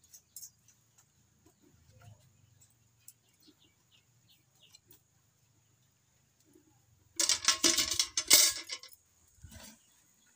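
Faint bird chirps, then about seven seconds in a loud metallic clatter of about two seconds as a metal milk pail is handled and set down, followed by a shorter knock a second later.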